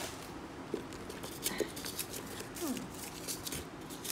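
Light rustling and scattered small clicks and taps as a faux-leather tote bag and its contents are handled, with one brief falling squeak a little past the middle.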